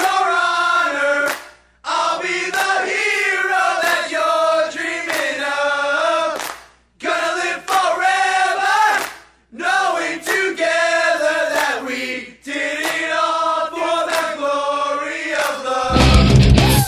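Soundtrack song in a sung section, voices singing in phrases with short breaks and little low-end backing. A loud rock band with heavy low end comes in near the end.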